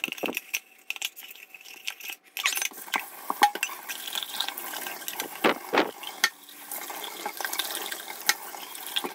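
Dish brush scrubbing inside a stainless steel YETI tumbler, with clinks and scrapes against the metal. About two seconds in, tap water starts running into the mug and the scrubbing goes on under it.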